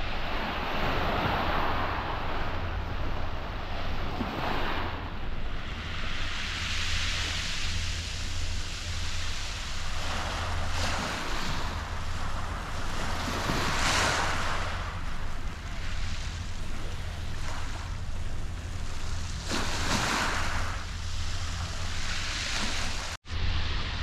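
Small waves breaking and washing over a shingle beach, swelling every few seconds, with wind on the microphone and a steady low hum underneath. The sound cuts out abruptly for a moment near the end.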